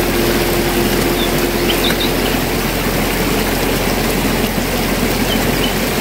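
Steady rushing water, an even hiss. A steady low hum runs under it and fades out a little before halfway, and a few faint high chirps come through.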